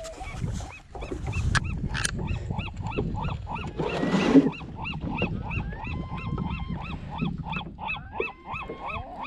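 An animal calling over and over in short calls that rise and fall in pitch, about three a second, over a low rumble. A short, louder burst of noise comes about four seconds in.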